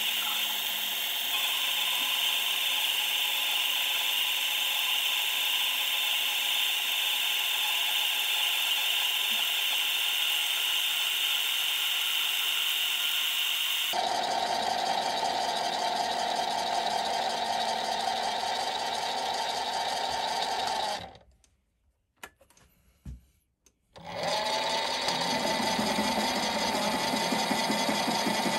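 Mini metal lathe running while a tool faces the end of a steel billet, a steady high-pitched whine of the spindle drive and cut. About 14 s in the whine drops to a lower steady pitch, then it goes nearly silent for about three seconds before the running and cutting sound returns.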